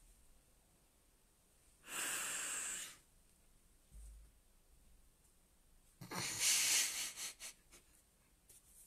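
A woman stifling a laughing fit: two long, breathy puffs of laughter. The first comes about two seconds in, muffled by her hand over her mouth. The second comes about six seconds in and trails off in a few short gasps.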